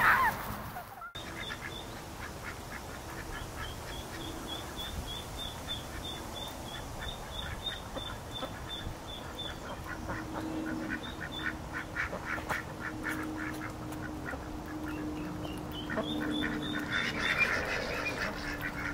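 Domestic geese and ducks calling, with a thin high peeping repeated several times a second and a run of rapid quacks and honks through the second half.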